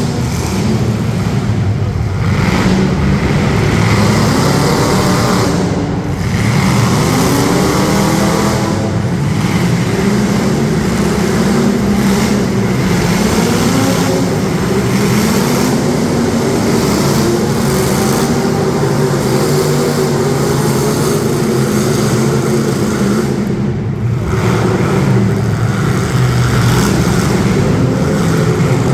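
Several demolition-derby street stock car engines revving hard together, their pitch rising and falling as the drivers work the throttles, easing off briefly twice.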